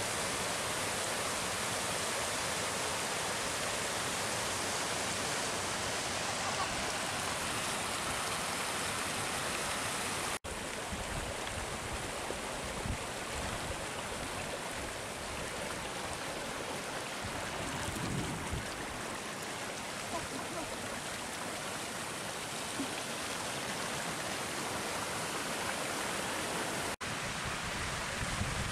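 A small waterfall and the hill burn below it rushing steadily over rocks. The rush drops out for an instant twice, about ten seconds in and near the end.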